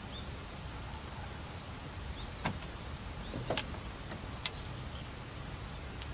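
Quiet golf-course ambience: a steady low background rumble, with three faint sharp clicks about two and a half, three and a half and four and a half seconds in.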